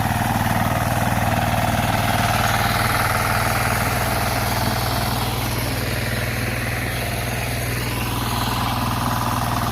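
Single-cylinder diesel engine of a two-wheel hand tractor (kuliglig) running steadily as it works a field.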